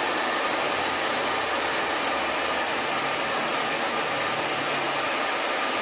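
Handheld electric hair dryer running steadily, blowing air.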